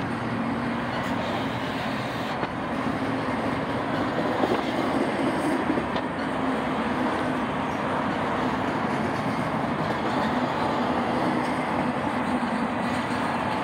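Double-stack intermodal well cars of a freight train rolling steadily past: a continuous rumble and rattle of steel wheels on the rails.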